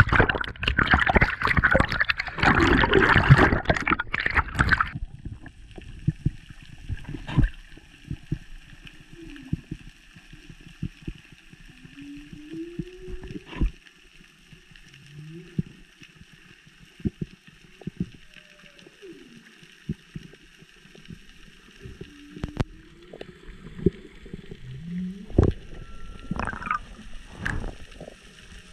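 Loud splashing and bubbling of water over the microphone for about the first five seconds. Then, underwater, a steady hiss with scattered clicks and knocks, and a series of short low calls that glide up or down, typical of humpback whale song carried through the sea.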